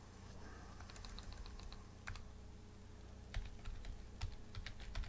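Typing on a computer keyboard: a quick run of about seven keystrokes a little after the first second, then scattered single key clicks over the last couple of seconds.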